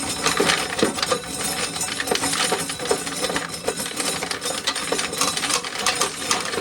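Corn sheller stripping an ear of corn, a dense rattling clatter of kernels and cob against the machine.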